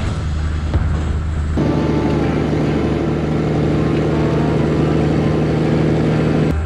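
Heavy diesel semi truck under way, heard from inside the cab: a steady low engine drone with road noise, its note changing abruptly about a second and a half in and again near the end.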